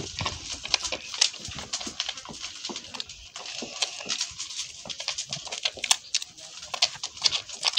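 Wet smacking and sucking clicks of a puppy and a calf suckling at a goat's udder, coming irregularly several times a second.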